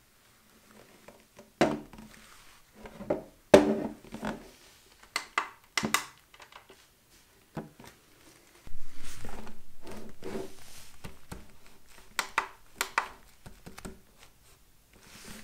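Sharp knocks and taps of a hard plastic Star Wars logo light being handled and set down on a tabletop by leather-gloved hands. About nine seconds in, a longer sound starts suddenly and fades away over about three seconds. Near the end come a few sharp clicks as the light's on/off button is pressed.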